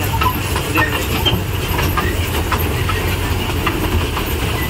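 Amusement-park toy train running: a steady low rumble with scattered light clicks and rattles.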